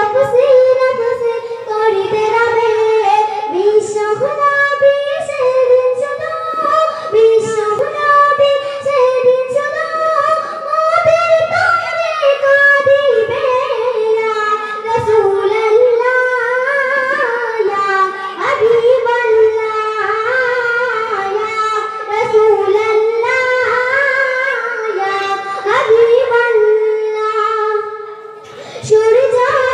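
A young girl singing a Bengali Islamic gojol (devotional song) solo into a microphone, in long melodic lines, with a short break near the end.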